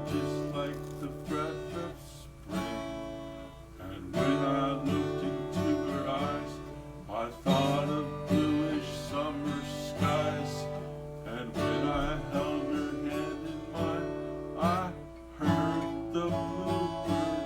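Instrumental passage of a song played on acoustic guitar: strummed chords, with a strong stroke every second or two.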